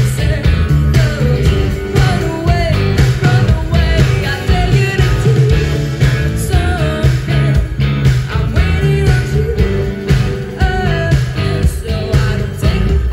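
Live rock band playing: a woman singing over electric guitars, bass and a steady drum beat.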